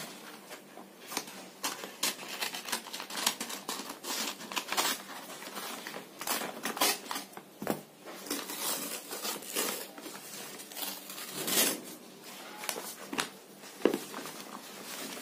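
Scissors cutting through a paper courier envelope, then the paper being torn open and crinkled in irregular rustles and crackles as hands reach inside to pull out the book.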